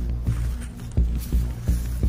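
Background music with a steady low beat.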